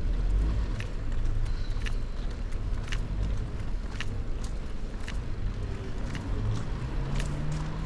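Road traffic rumbling steadily, with a car's engine rising in pitch near the end as it pulls away or passes. Footsteps land about once a second.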